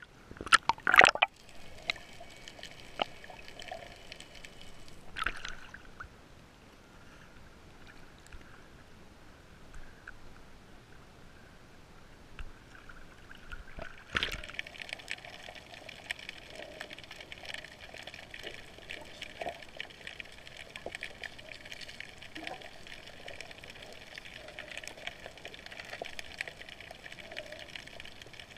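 Sea water splashing and sloshing against an action camera held at the surface, with loud splashes in the first second. About halfway through comes a sharp splash as the camera dips under, then a steady underwater hiss.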